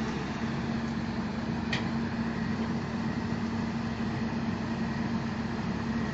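Excavator's diesel engine running steadily with a constant low hum, and a single short click about two seconds in.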